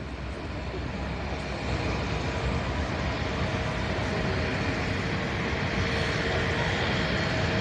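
Jet airliner engines running, a steady rush with a faint whine over it, growing slowly louder.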